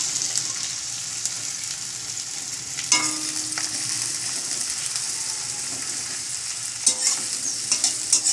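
Sliced onions sizzling in hot oil in a kadai, a steady high hiss. A steel spatula clacks and scrapes against the pan about three seconds in and several times near the end as the onions are stirred.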